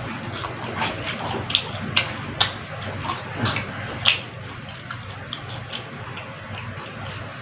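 A person eating close to the microphone: chewing and smacking with sharp wet mouth clicks, busiest in the first four seconds and fainter after.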